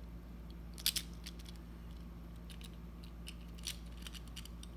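Small scattered clicks and ticks of tiny die-cast toy car wheels and axle being handled and pressed, as the wheels are worked onto an axle that they won't yet slide onto. Two sharper clicks come about a second in, over a low steady hum.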